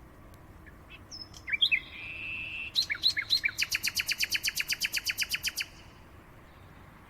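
A songbird singing one phrase: a few quick chirps and down-slurred whistles, a short held whistle, then a fast even trill of about ten notes a second that stops abruptly about five and a half seconds in.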